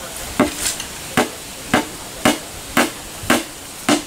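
Small hammer tapping nails into the hide-covered rim of a stringed instrument's body, setting the nails that anchor the strings. Seven sharp strikes in an even rhythm, about two a second, with one lighter tap near the start.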